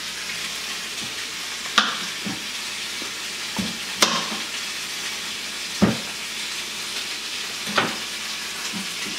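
Oil sizzling steadily in a frying pan. Over it come four sharp knocks of a knife striking a cutting board as broccoli is chopped, about one every two seconds, with a few lighter taps between them.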